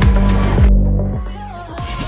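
Electronic dance music with a heavy bass beat; about two-thirds of a second in the high end cuts out and the music drops quieter and thinner, picking up again near the end.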